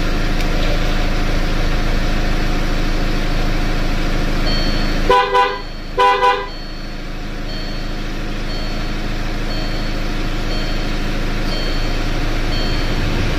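Land Rover engine idling steadily. The car horn sounds twice, a short double blast each time, about a second apart. A faint high beep repeats about once a second.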